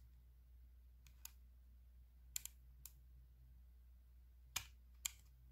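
Plastic spatula clicking and tapping against a plastic eyeshadow palette as it digs into the pressed glitter eyeshadow: a handful of short sharp clicks at irregular gaps, the loudest about four and a half seconds in, over near silence.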